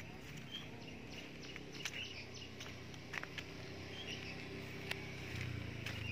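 Rural garden ambience: short high chirps repeating every second or so, with scattered soft clicks of footsteps on grass. A low hum comes in about five seconds in.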